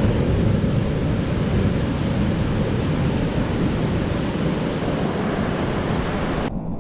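Ocean surf washing in, with wind buffeting the microphone in a heavy low rumble. It cuts off suddenly near the end and soft ambient music begins.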